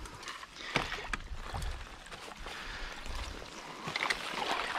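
Water sloshing and splashing unevenly as a person wades through a creek, with scattered splashes from each step.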